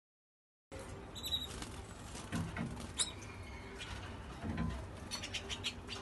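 Small cage birds moving about a wire cage: soft thumps of wings and feet, rustling and light clicks, with a few short high chirps. The sound begins about a second in.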